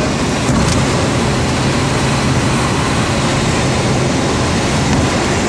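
Comco Ikarus C42B ultralight's engine and propeller running, heard from inside the cockpit as the aircraft rolls along the runway, with a loud, steady rushing noise over a low drone.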